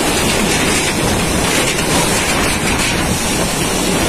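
Typhoon-force wind blowing with driving rain, a loud, steady rush that buffets the microphone.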